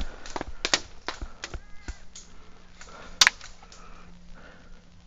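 Airsoft gunfire: irregular sharp clicks and taps of shots and BB hits, with one louder crack about three seconds in.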